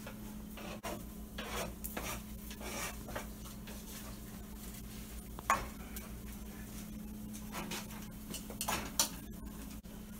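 Kitchen utensils at work: scraping and clinking against dishes, with two sharper clinks about five and a half and nine seconds in, over a steady low hum.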